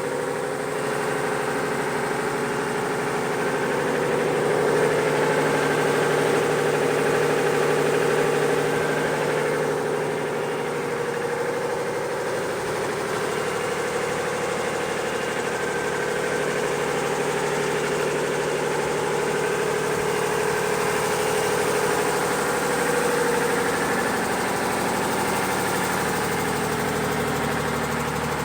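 Unimog FLU419's diesel engine idling steadily, a little louder for a few seconds about four seconds in.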